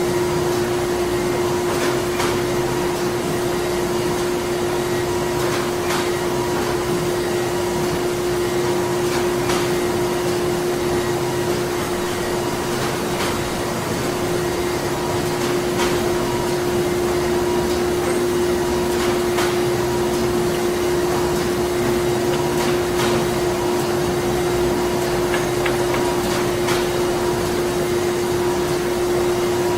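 Printing-factory machinery running: a steady industrial hum with a constant droning tone over even mechanical noise, and faint scattered clicks.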